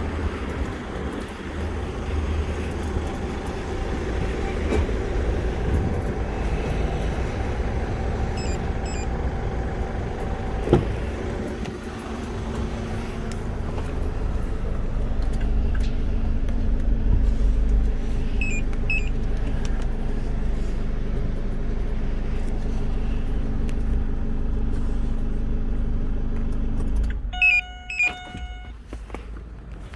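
Chevrolet Captiva engine idling steadily, running on a remote start, then shutting off near the end with a few short electronic beeps. Faint short chirps sound twice while it idles.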